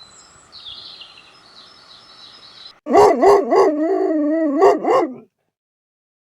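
A dog howling and yelping in a wavering, rising-and-falling call for about two seconds, starting about three seconds in and cutting off suddenly.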